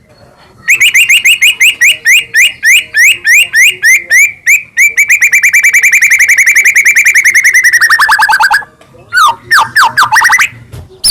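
White-rumped shama (murai batu) singing loudly: a long run of repeated upswept whistled notes starts about a second in, quickens and slides lower in pitch before breaking off, then after a short pause comes a quick run of sweeping notes.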